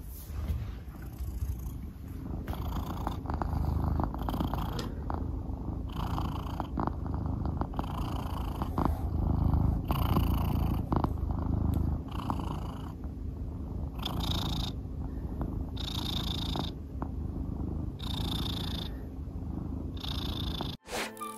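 A Scottish Fold cat purring close to the microphone: a continuous low rumble that changes with each breath in and out, about every two seconds.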